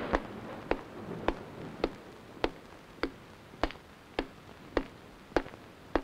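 Film sound-score effect: sharp clicks at a steady, even pace, a little under two a second, over a hiss that fades away, setting the sound of drops falling on dry soil.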